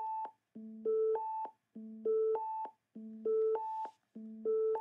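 Pure Data sine-wave oscillator stepping through a looped four-note sequence rising in octaves, each note held about a third of a second: a near-silent low step (the 110 Hz note barely comes through laptop speakers), then steady tones at 220, 440 and 880 Hz. The cycle repeats about four times.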